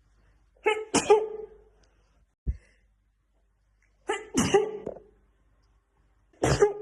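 A woman sneezing repeatedly in a sneezing fit: loud, sudden sneezes about a second in and about four seconds in, with another starting just at the end. A short low thump comes between the first two.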